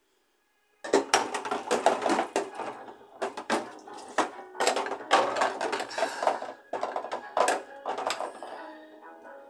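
After a brief silence, music starts about a second in, with dishes and glassware clinking and clattering over it in an uneven run of sharp knocks.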